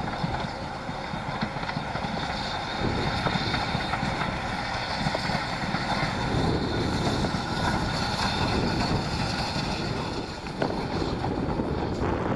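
BR Standard Class 4 2-6-4T tank steam locomotive 80072 passing under steam, its exhaust beats and running gear sounding with the train behind, with wind buffeting the microphone.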